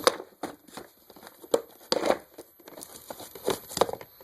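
Fireworks packets being handled, their wrappers crinkling, with scattered short clicks and light knocks.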